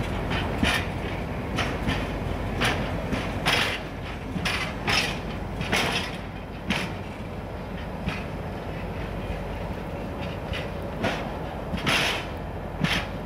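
Railway flat wagons rolling past, their wheels knocking irregularly over rail joints, about once a second, over a steady low rumble.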